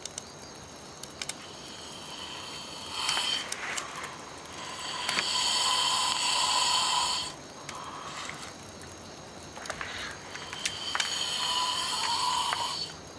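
A sleeping man snoring loudly: two long snores, one about five seconds in and another near the end, each led in by a shorter, softer breath.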